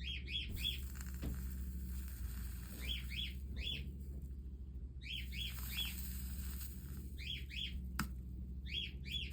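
A bird chirping in short bursts of three quick, falling notes, repeated about every two seconds, over a steady low hum; a single sharp click about eight seconds in.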